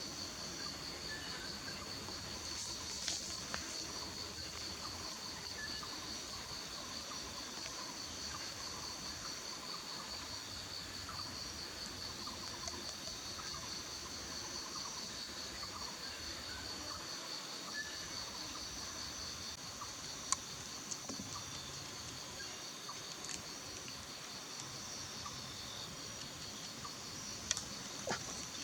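Steady chorus of insects, a continuous high pulsing trill, with a few faint clicks.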